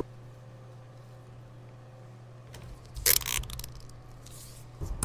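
A steady low hum, with a short burst of rustling and a few clicks about three seconds in.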